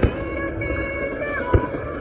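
Firework shells bursting: a sharp bang at the start and another about one and a half seconds in, over background music with held tones.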